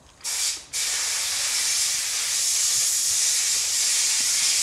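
Steady, high sizzling hiss of food cooking on a camp stove, starting with a short burst about a quarter of a second in and then holding level.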